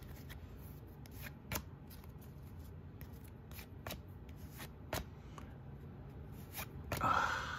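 Hockey trading cards being flipped through by hand, each card slid off the stack with a light flick, with scattered sharp clicks. A louder sliding rustle comes near the end.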